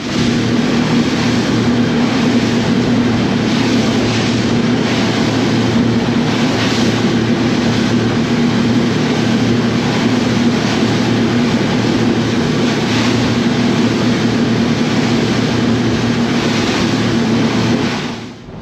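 Twin 250 hp outboard motors running steadily at cruising speed, a constant engine hum over the rush of wind and the boat's wake.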